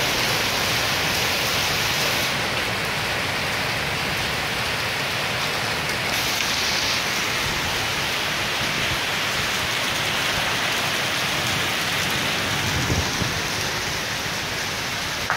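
Heavy rain pouring steadily onto pavement during a severe storm, an even, unbroken hiss.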